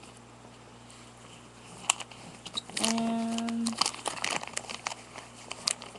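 Comic books being handled and shuffled: paper and glossy covers crinkling, with many small sharp clicks and crackles from about two seconds in. A short hummed voice sound is heard about three seconds in.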